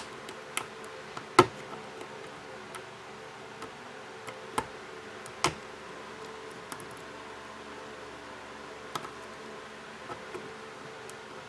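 Scattered light clicks and taps of small repair tools against a smartphone's internal parts as its ribbon-cable connectors are worked loose, about eight of them, the sharpest a little over a second in, over a steady faint hum.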